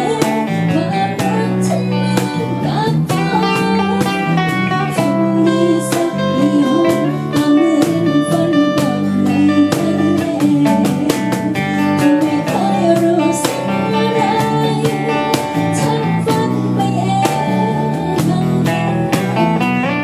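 Live acoustic band music: strummed acoustic guitars over a steady cajon beat, with a melody line above them.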